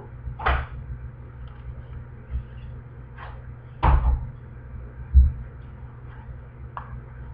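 Handling noise from a hardcover picture book being held up and moved about close to a webcam: a few scattered knocks and rustles, the loudest about four seconds in and a dull thump about five seconds in, over a steady low hum.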